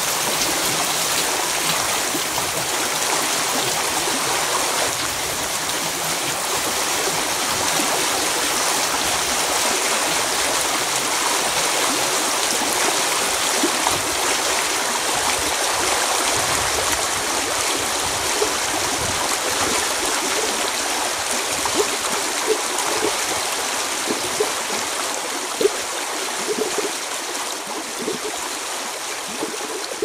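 Water flowing steadily like a stream, with small gurgles and drips popping up more often in the second half.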